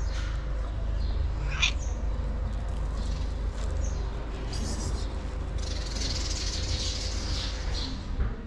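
A tabby street cat gives one short meow about one and a half seconds in, over a steady low rumble. A high hiss comes in past the middle and lasts a couple of seconds.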